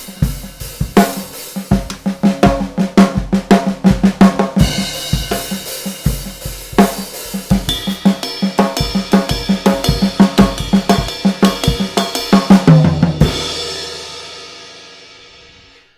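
Full drum kit playing a fast groove built on Swiss Army triplets in a sixteenth-note feel: flams and taps on the snare and toms with an accent on the right hand, over bass drum and cymbals. About 13 seconds in it stops on a final hit that rings out and fades away.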